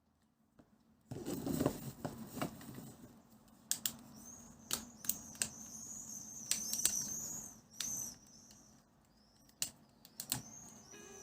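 Plastic food containers being handled, with a string of sharp clicks, taps and crinkles starting about a second in.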